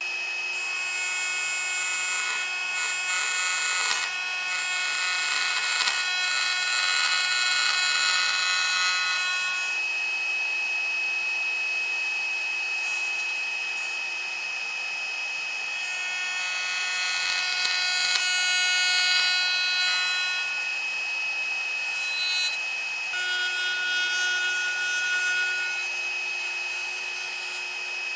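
Milling machine's router spindle running at speed with a steady high whine while its straight bit cuts into a wooden block. The cutting noise swells during the first third, again around two-thirds of the way through and once more near the end.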